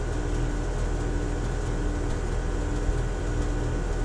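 Steady mechanical hum of a machine running, with a faint tone that pulses on and off.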